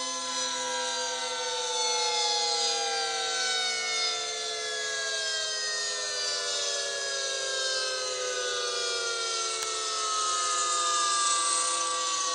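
Several outdoor tornado warning sirens sounding together. Their pitches fall slowly over several seconds as they wind down, while lower steady tones carry on beneath.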